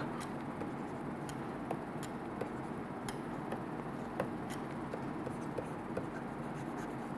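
Faint, irregular taps and scratches of a stylus writing on a tablet screen, over a steady low hiss.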